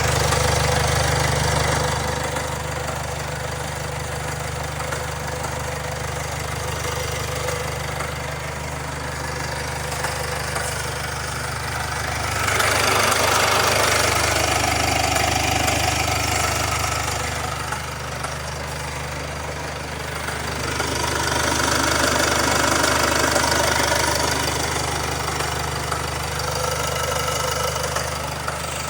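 Mercedes-Benz OM651 four-cylinder diesel idling with a strange knock that the owner says became clearly audible after an oil change. It gets louder for a few seconds around the middle and again later on.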